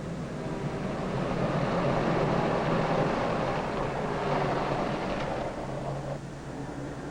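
A motor vehicle passing: its noise builds to a peak about three seconds in, then fades away about six seconds in.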